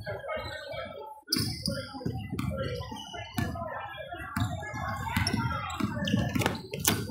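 Spectators and players chattering in a gymnasium, with a basketball bouncing on the hardwood floor a few times near the end.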